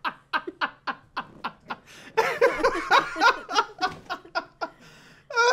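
A man and a woman laughing hard: a quick run of short breathy laugh pulses, about four or five a second, breaking into louder, fuller laughter about two seconds in.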